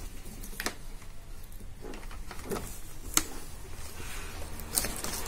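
A few scattered sharp clicks and taps as hands handle a laptop LCD panel and its display cable, the loudest a little after three seconds in, over a faint low hum.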